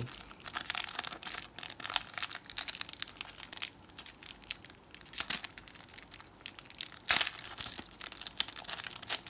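Shiny plastic wrapper of a Panini Adrenalyn XL trading card pack being torn open and crinkled by hand: a run of irregular crackles, with one sharper crackle about seven seconds in.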